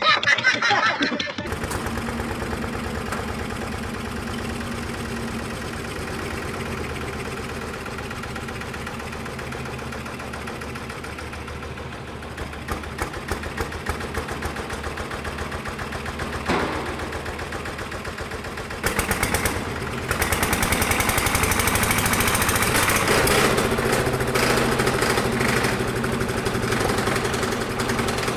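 A Petter PH1 single-cylinder diesel engine on a Winget Muir-Hill dumper running with a steady, rapid beat, after a second or so of a child's voice. About halfway through it becomes louder and uneven, with one sharp knock, and from about two-thirds of the way through it runs louder and harder.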